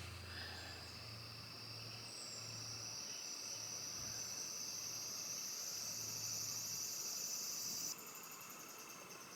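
Insects buzzing in a steady high-pitched drone that rises slowly in pitch, then drops off suddenly about eight seconds in.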